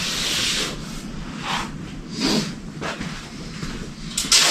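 Tape being pulled off the roll and rubbed down onto a car hood: a longer rustle at the start, then several short scratchy strokes.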